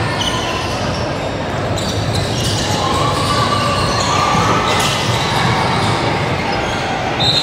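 Busy gym during a youth volleyball match: balls thumping and bouncing on the court over a steady din of voices in a large hall.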